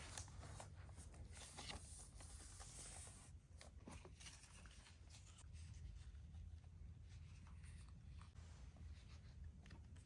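Faint rustling and scraping of packaging being handled, with soft scratchy strokes now and then.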